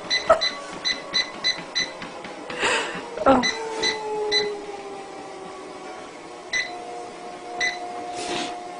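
Treadmill beeping: short electronic beeps about four a second for the first two seconds, then a few single beeps spaced out. Under them runs a faint steady whine that slowly falls in pitch, broken by a couple of brief noisy scuffs about three seconds in.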